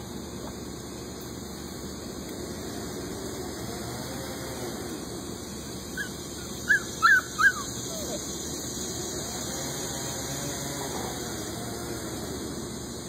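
Puppy giving a quick run of four or five short, high yelps about six to seven and a half seconds in, over steady background noise.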